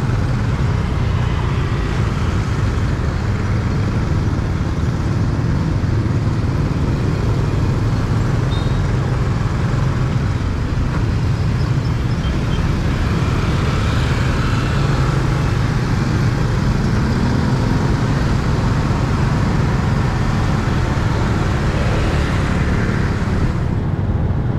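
Steady city street traffic noise heard from a moving vehicle, with a constant low rumble underneath.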